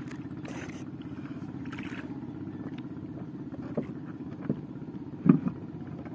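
A boat engine running steadily with a low, even drone, and a few short knocks on the boat in the second half, the loudest about five seconds in.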